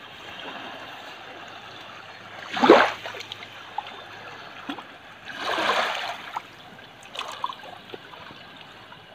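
Small waves lapping and washing over sand and pebbles at the water's edge, with two louder washes, one about two and a half seconds in and a longer one about five and a half seconds in.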